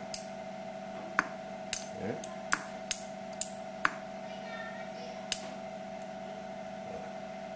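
Metal tweezers clicking against the strong hard-drive magnets of a small home-made magnetic table, a sharp metal click each time they snap onto the magnet; about eight clicks at uneven intervals.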